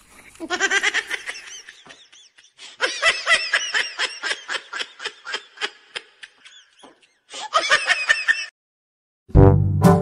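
Laughter in three bouts of quick, evenly repeated ha-ha pulses, about five a second. Near the end it stops, and loud brass music comes in.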